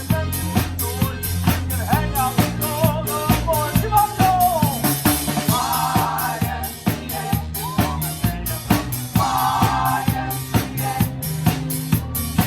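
Live band playing a seventies pop-rock song, the drum kit up front with a steady kick-and-snare beat over a bass line and a melody on top.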